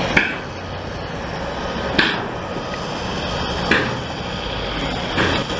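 Heavy diesel snow-removal machinery running steadily, with four sharp knocks at roughly even intervals of about a second and a half.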